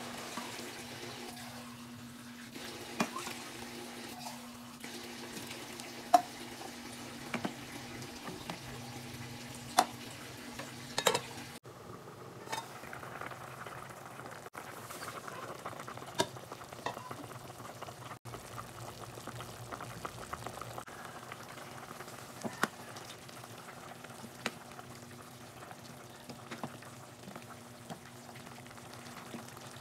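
Chicken and vegetable pieces sizzling in an aluminium pot, with a few sharp knocks. After about twelve seconds this gives way to the broth boiling and bubbling. Near the end a wooden spatula stirs through the soup.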